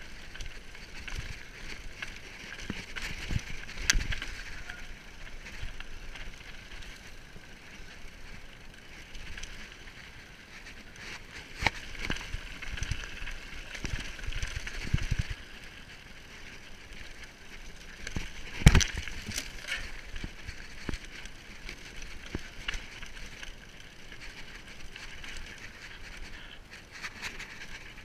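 Mountain bike rolling fast downhill over dirt and stones: a steady rushing rattle from the tyres and bike, broken by sharp knocks as it hits bumps, the loudest about two-thirds of the way through.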